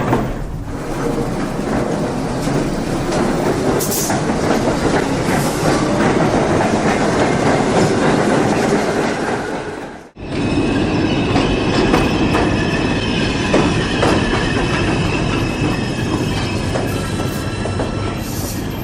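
New York City subway train running past on the track, wheels clattering over rail joints with some high wheel squeal. About ten seconds in the sound cuts out abruptly and a second train run starts, with steady squeal tones over the rumble.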